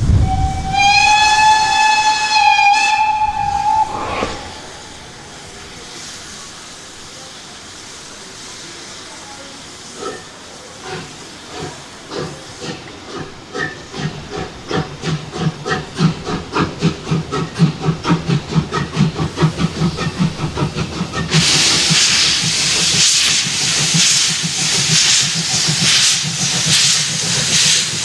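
Steam locomotive whistle blown once for about three seconds. After a pause the locomotive pulls away: its exhaust chuffs start slow and speed up. About twenty seconds in, a loud hiss of steam joins them.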